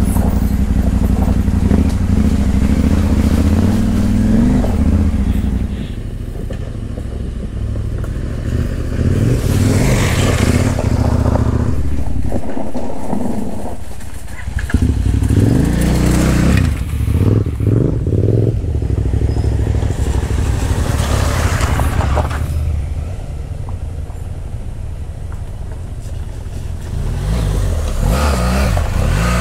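Adventure motorcycle engine running under way, its pitch rising and falling with the throttle, with a brief drop about halfway through and several short bursts of rushing noise.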